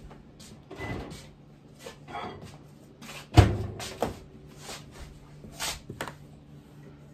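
Kitchen handling noises: a run of small clicks, knocks and rustles, with one loud thump about three and a half seconds in.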